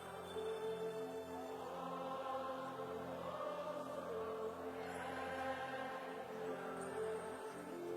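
Soft worship music with long held notes, slow chords carried by choir-like voices.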